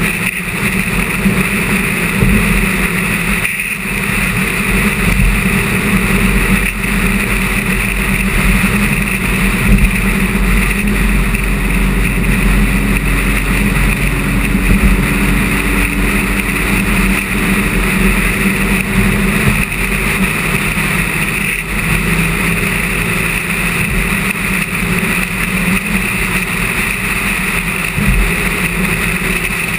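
A car driving steadily at highway speed: a constant mix of engine drone and tyre and road noise, with no revving.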